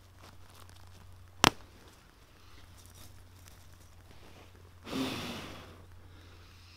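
One sharp crack about a second and a half in, then a single long breath blown onto smouldering embers and brushwood about five seconds in, fanning the fire back to life.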